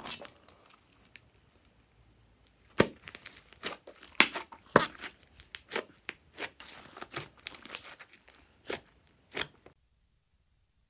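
Fluffy slime being squeezed and pressed by hand, giving irregular sticky crackles, snaps and pops. The first couple of seconds are quieter, and the sound cuts off abruptly near the end.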